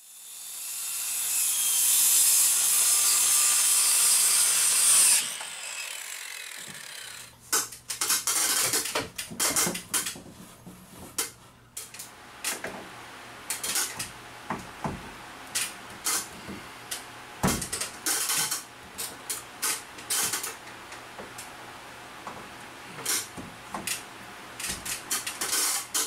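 A loud hiss swells up and cuts off abruptly about five seconds in. After that come many sharp, irregular clicks and taps of metal hooks being pushed into pegboard holes, over a low steady hum.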